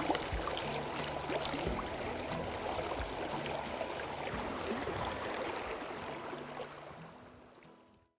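Shallow stream water running over rocks, a steady rushing and trickling, with low background music under it; it all fades out near the end.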